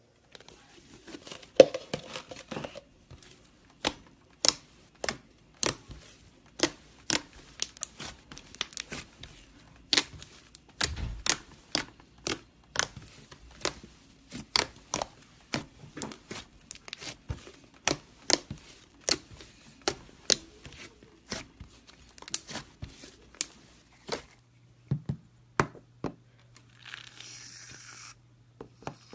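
Slime being squeezed and pulled by hand, giving a run of sharp pops and clicks about one to two a second over a faint crackle. Near the end the popping stops and a softer rustling hiss follows.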